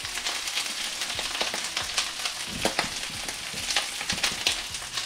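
Butter and oil sizzling in a hot stainless sauté pan on medium to medium-high heat, with asparagus frying in a second pan: a steady hiss with frequent small pops and crackles.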